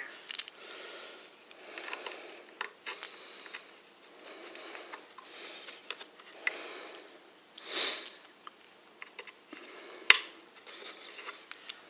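Breathing through the nose close to the microphone, a hazy swell every second or two, one stronger near the middle, with light clicks and knocks as wooden dowels are pressed by hand into holes in a particleboard shelf edge; one sharper click comes about ten seconds in.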